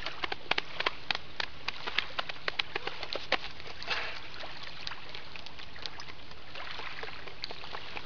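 Hands and fists tapping over the body through a jacket in a self-massage tapping exercise: a quick, irregular run of short taps for the first three seconds or so, thinning out to scattered taps later. A breathy exhale comes about four seconds in, over small lake waves lapping steadily at the shore.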